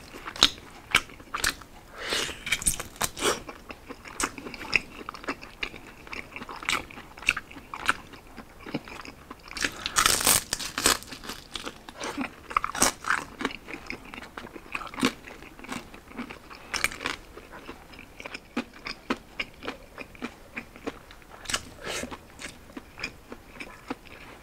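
Close-up biting and chewing of crispy roasted pork belly (liempo), its hard, crackling skin giving many sharp, irregular crunches, with a dense run of crunching about ten seconds in.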